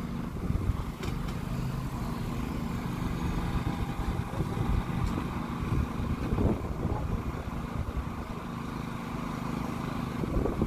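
Steady low drone of idling emergency-vehicle diesel engines, with a few faint knocks.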